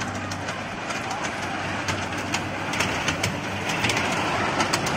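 Amusement-park kiddie toy train running on its small steel track: a steady low motor hum with a run of clicks and rattles from the wheels and cars, growing busier from about two seconds in.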